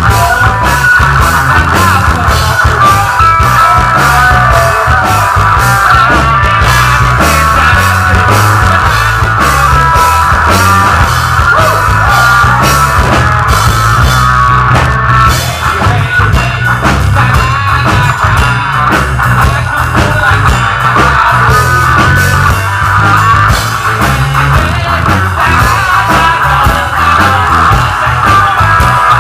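Rock band playing live: a drum kit beats steadily under loud electric guitars and bass.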